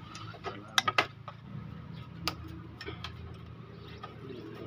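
Metal tool clicking against a motorcycle engine's cam chain tensioner as it is being unbolted: three sharp clicks close together about a second in, then a few lighter single ticks.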